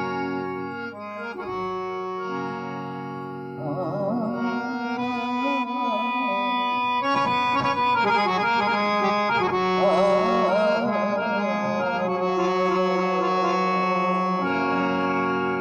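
Harmonium-style free-reed instrument playing sustained chords and a melody in traditional South Asian music. From about four seconds in, a wavering, heavily ornamented melodic line rises over the steady reeds.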